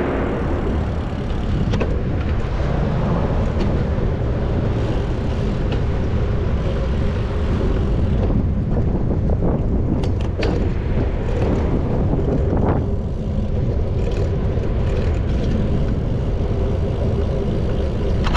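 Steady road traffic noise, with a few short sharp clicks about ten to thirteen seconds in.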